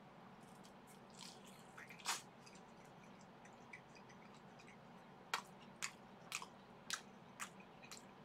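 Chewing a mouthful of vegetable kakiage (battered tempura fritter): a crunch about two seconds in, then a run of sharp, crisp clicks about twice a second in the second half.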